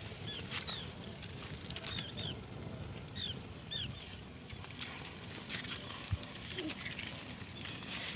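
Small open wood fire crackling with scattered sharp pops, while a bird gives short high chirps every second or so in the background.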